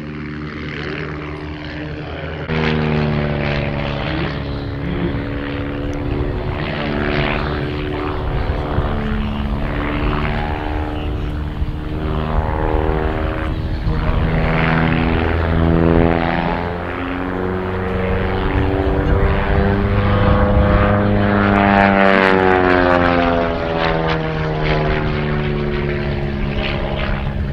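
One Design aerobatic monoplane's piston engine and propeller during an aerobatic display, its note repeatedly rising and falling in pitch as power and airspeed change through the manoeuvres. It grows louder about two and a half seconds in.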